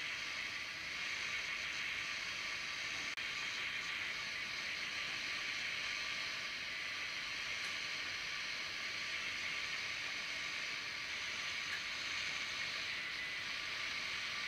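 Shortwave static and hiss from the speaker of a Digitech AR1458 pocket AM/FM radio modified to receive shortwave, with weak, continuously sent Morse code faintly under it. The Morse signal beats with another signal to make a faint steady tone.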